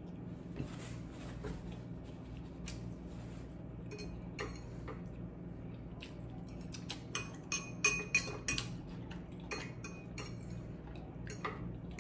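Metal fork clinking and scraping against a glass bowl while scooping fried cabbage, in scattered taps with a quick run of ringing clinks about two-thirds of the way through.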